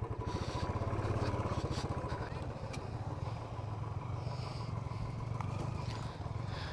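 Motorcycle engine running steadily, with a fast low-pitched pulsing that is a little louder in the first couple of seconds.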